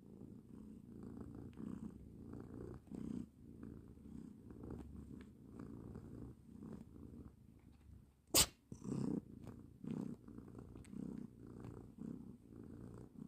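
Domestic cat snoring in its sleep: a low buzzing breath sound that swells and fades about once a second. A single sharp click just past eight seconds in is the loudest sound.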